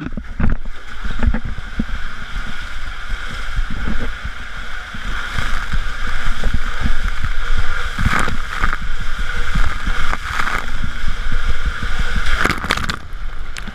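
Rushing water and a rider's body sliding and bumping down an enclosed water-slide tube, loud and continuous, with low thumps throughout and a few sharp knocks and splashes in the second half; water and air rush over a microphone held close to the body.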